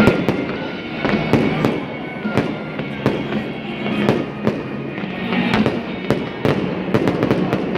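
Fireworks going off in quick succession: a string of irregular bangs and crackles, about two a second, over steady background music.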